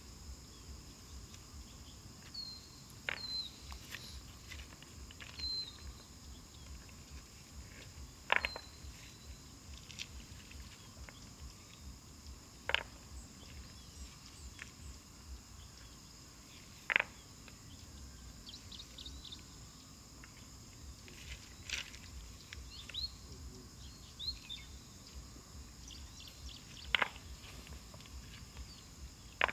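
Outdoor forest ambience: a steady high insect drone with short bird chirps, some in small clusters, and a handful of sharp single knocks spread a few seconds apart, the loudest about eight and seventeen seconds in.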